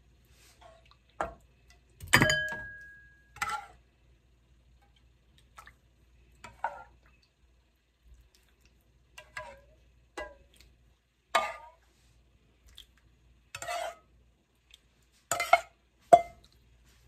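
Tableware clinking and knocking: about a dozen separate light clinks of dishes and utensils, the loudest about two seconds in, ringing briefly like struck glass or china.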